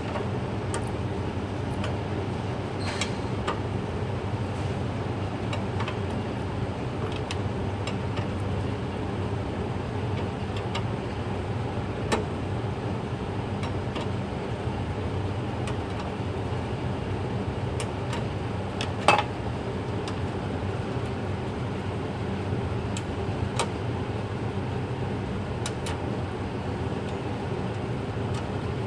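Steady hum of garage background noise, with a few light clicks and one sharper click about two-thirds of the way through.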